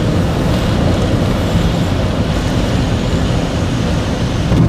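Steady noise of airflow rushing past the cockpit and canopy of a Schweizer two-seat glider sliding in low over grass to land, heaviest in its low end.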